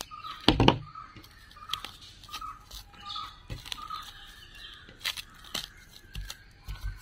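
Plastic cling film crackling and crinkling as hands fold and press it around a burger bun, a run of sharp irregular little cracks, the loudest about half a second in.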